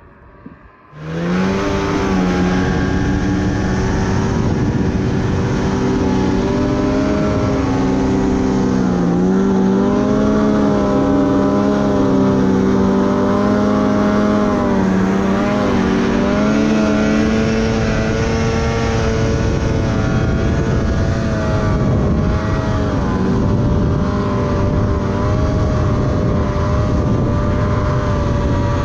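Snowmobile engine running at speed, its pitch rising and falling as the throttle changes, over a steady rushing noise. It comes in abruptly and loud about a second in.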